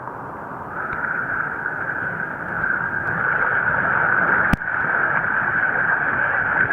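Whitewater rapids rushing steadily around the raft, a continuous hiss of moving water that swells slightly about a second in. A single sharp click about four and a half seconds in.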